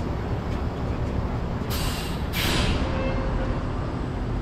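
A bus's air brakes releasing compressed air in two short hisses, a fraction of a second apart, about two seconds in. Underneath is a steady low rumble.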